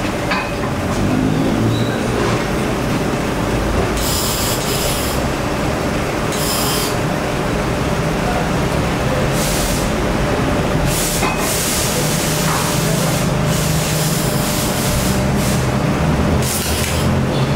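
Welding-shop noise: arc welding hissing and crackling in bursts of a second or two, over a steady low hum.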